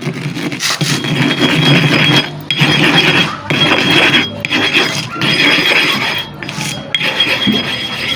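Sharpening stone being ground back and forth against a surface with sand: a loud, gritty scraping in repeated strokes, with short breaks about once a second.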